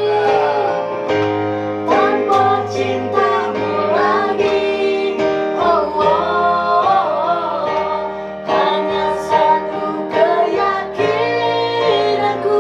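A woman singing a melodic song, holding and bending notes, over instrumental backing with guitar.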